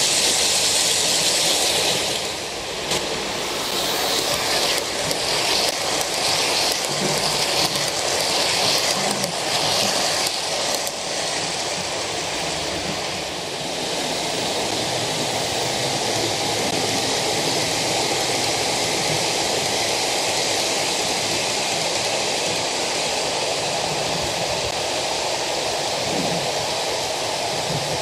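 OO gauge model trains running on the track: a steady rolling rush of wheels on the rails. For the first ten seconds or so, light clicks come as the coaches pass close by.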